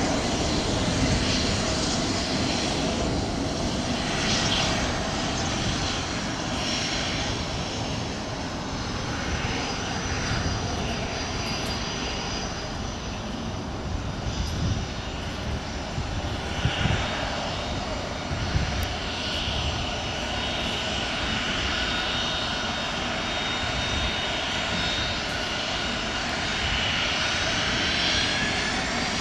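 Hawker 800XP business jet's twin turbofans running with a steady whine at low taxi power. Near the end the whine rises in pitch as the engines begin to spool up.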